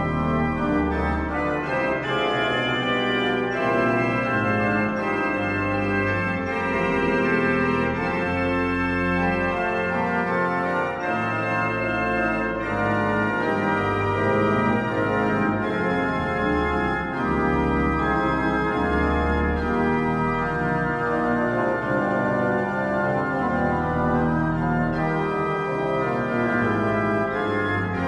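Koenig pipe organ playing French Baroque music: full, sustained chords in several voices over moving bass notes, with no breaks.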